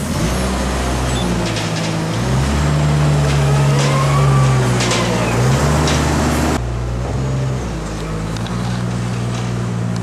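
Small wheel loader's diesel engine running under load as it lifts and tips a bucket of bedding, its pitch stepping up and down, with a few light clatters.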